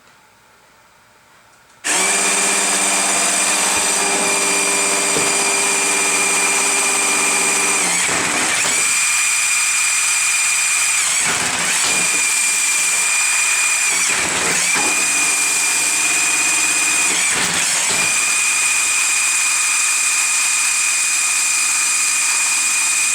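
Robot's electric motors switching on abruptly about two seconds in and then running with a loud, steady high whine. The whine sags briefly four times before recovering.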